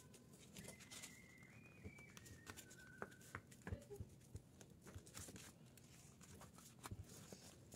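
Near silence, with faint taps and rustles of paper being folded and pressed flat by hand. A faint thin tone wavers in the background for the first few seconds.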